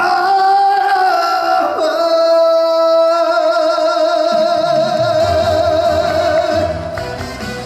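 Male trot singer holding the long final note of a song, the vibrato widening after about three seconds, over backing music whose bass and drums come in about halfway through.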